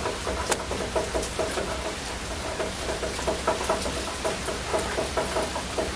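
Newborn kittens mewing: a steady run of short, thin squeaks, several a second, over a steady hiss.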